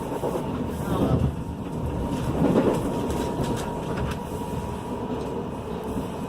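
Train running along the track: a steady rumble with a faint steady whine above it.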